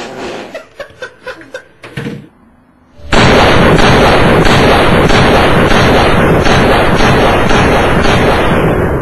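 A few short, sharp knocks, then about three seconds in a sudden, very loud, distorted blast of gunfire noise that goes on without a break for about six seconds and dies away at the end.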